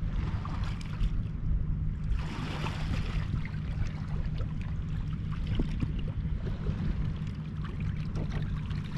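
Water lapping and trickling against the shore rocks, over a steady low hum.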